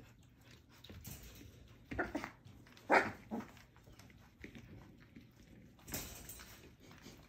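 Almost four-week-old puppies giving short yelps and whimpers, a few cries about two seconds in and the loudest about three seconds in. A brief scuffling noise near the end.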